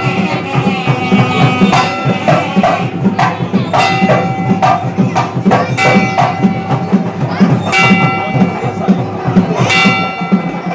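Kerala temple percussion ensemble playing: rapid drum strokes, with a ringing metallic clash about every two seconds.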